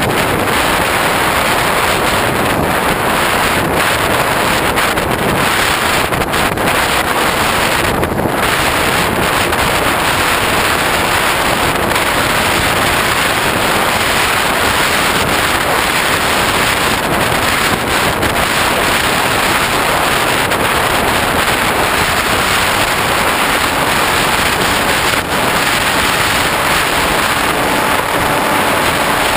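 Loud, steady wind rush on the onboard GoPro of a Hobbyking Bixler RC plane in flight, mixed with the plane's electric motor and propeller.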